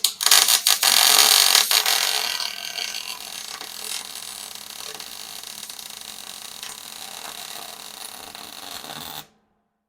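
Welding arc running a bead, crackling loudly for the first two seconds or so, then settling to a steady hiss and cutting off suddenly near the end.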